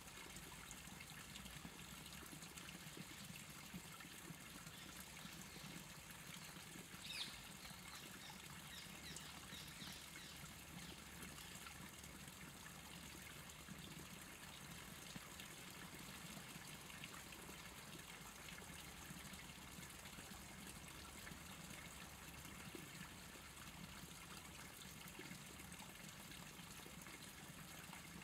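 Faint streamside ambience: water trickling quietly and steadily over a low hum. A brief high-pitched sound with a few faint ticks after it comes about seven seconds in.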